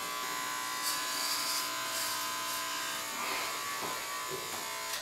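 Corded electric hair clippers buzzing steadily while shaving a head of long hair, stopping right at the end.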